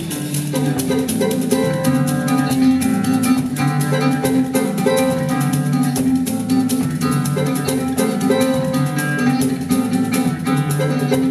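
Live samba band playing an instrumental passage between sung verses: plucked acoustic guitars and cavaquinho over bass, drums and a steady rattle of hand percussion.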